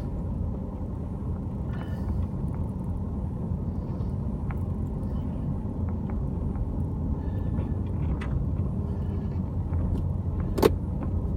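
Car driving slowly on a narrow winding paved road, heard from inside the cabin as a steady low road and tyre rumble. A single sharp knock sounds near the end.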